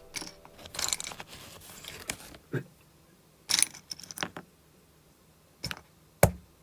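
Small hard plastic toy pieces clicking and rustling as they are handled and set down: a dozen or so scattered light clicks and short rustles, with one sharper click about six seconds in.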